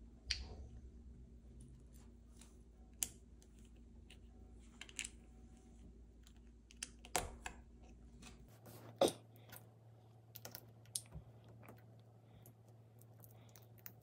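Plastic LEGO pieces being handled and pressed together: a dozen or so light, scattered clicks and taps at irregular intervals, the loudest about nine seconds in.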